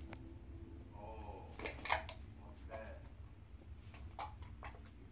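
A plastic sour cream tub being handled, its lid worked off in a few sharp clicks and crinkles, the loudest just under two seconds in. A brief low voice is heard about a second in.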